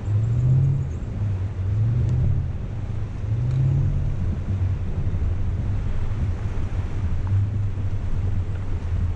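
SUV engine running at low speed in low range as the vehicle wades through shallow lake water, with water washing around it. The engine note swells up briefly three times in the first four seconds and then holds steady.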